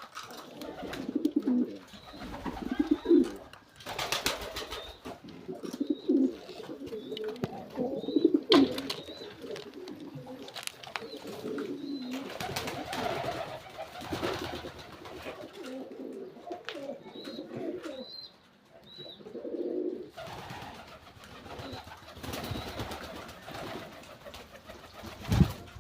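Domestic pigeons cooing over and over, with a few short high chirps and a few sharp knocks.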